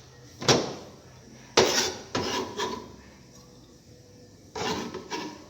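Cookware and utensils clattering: a handful of sharp knocks and clinks, some with a brief ring, the loudest in the first two seconds and another cluster near the end.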